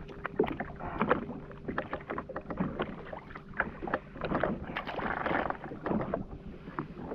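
Water lapping and sloshing against the hull of a floating jet ski, with many small clicks and knocks of fishing tackle being handled. A louder wash of water comes about five seconds in.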